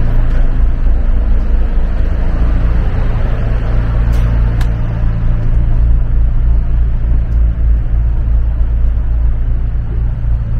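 Passenger boat's engines running, a steady low drone heard inside the passenger cabin.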